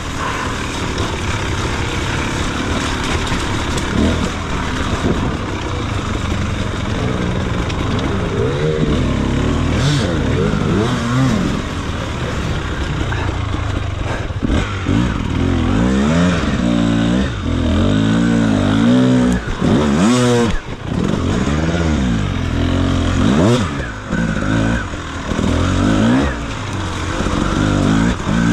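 Beta RR enduro motorcycle engine revving up and down over and over as it is ridden, the throttle opened and closed in quick rises and falls, with a brief drop-off about twenty seconds in.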